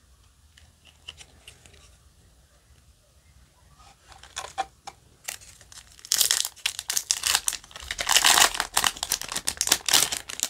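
A foil trading-card booster pack wrapper being torn open and crinkled by hand. Faint handling at first, then a dense crackling that starts about four seconds in and is loudest over the last few seconds.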